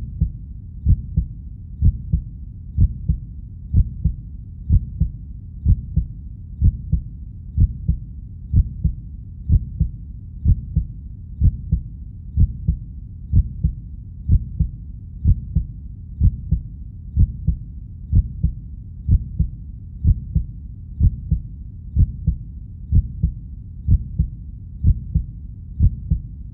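Slow heartbeat sound effect: a steady, low-pitched lub-dub about once a second, just over 60 beats a minute, over a constant low rumble.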